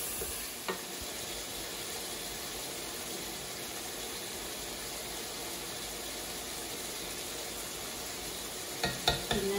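Sliced onions sizzling steadily as they fry in a non-stick pot, with a sharp knock about a second in and a few knocks near the end.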